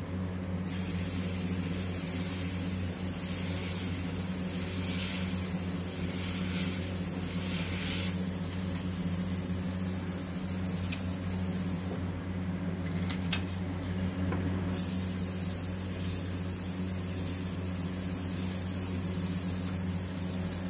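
Airbrush hissing as it fogs white paint over a stencil. The spray stops briefly near the start and again for a few seconds about two-thirds through, over a steady low hum.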